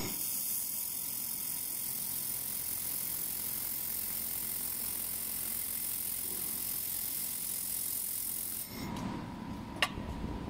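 Handheld fiber laser welder joining a steel T-joint, making a steady high hiss. The hiss stops about nine seconds in as the welding head is lifted off, leaving a lower hum and one sharp click.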